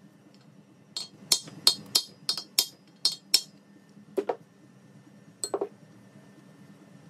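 Sharp, ringing metal-on-metal clinks, about eight in quick succession over roughly two and a half seconds, then two duller knocks a little later.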